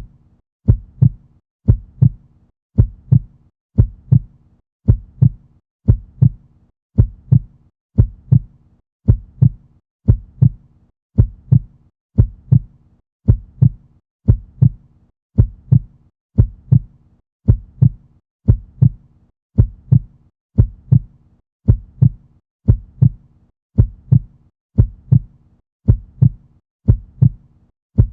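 Normal human heart sounds: a steady, regular lub-dub heartbeat, a little more than one beat a second, the first and second heart sounds of healthy valves closing with no murmur.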